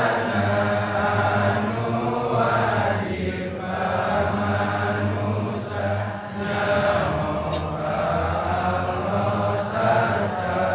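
A congregation of men chanting together in unison, long drawn-out phrases with short pauses between them.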